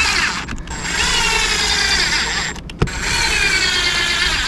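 Ryobi ONE+ cordless drill/driver driving screws into a roof vent's mounting flange, running in whining bursts of about two seconds with short pauses between, the pitch sagging a little as each screw draws tight.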